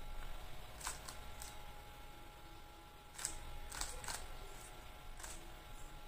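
Stickerless 3x3 speed cube being turned by hand: faint, irregular plastic clicks, about eight, as its layers are snapped round in a quick sequence of face turns.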